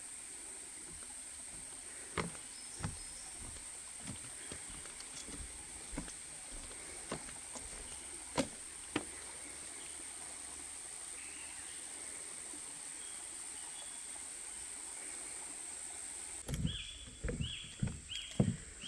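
Steady high-pitched drone of rainforest insects, with scattered light clicks and footfalls. Near the end comes a run of short, high chirps mixed with thumps.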